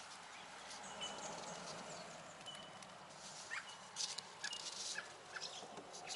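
Faint outdoor ambience: scattered short bird chirps and calls over a steady hiss, with a few sharp clicks and knocks about four to five seconds in.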